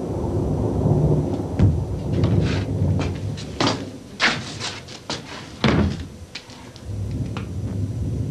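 Distant artillery bombardment: a continuous low rumble with sharp cracks and bangs coming every second or so, the loudest ones near the middle.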